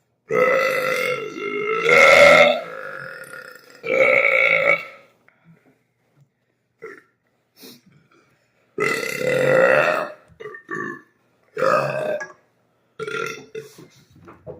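A man's deep, loud burps after gulping soda, coming as a series: a long one of about three seconds, a shorter one a second later, then after a pause another long burp and a few shorter ones near the end.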